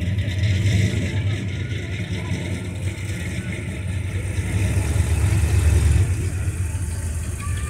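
Late-1970s Ford Bronco's V8 engine running as the truck drives slowly past, with a low steady rumble that swells as it passes closest, a little past the middle.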